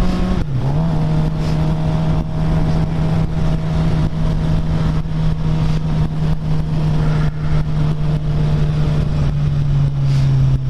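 Sportbike engine running at a steady cruise under heavy wind rush. The engine pitch dips briefly about half a second in, then holds steady, and settles a little lower near the end.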